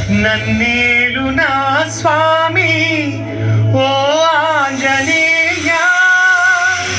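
Music: a solo voice singing a wavering, ornamented melody over a low held drone.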